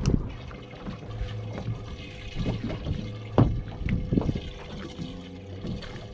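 Water sloshing and splashing at a boat, over a steady low hum, with a few sharp knocks, the loudest about three and a half seconds in.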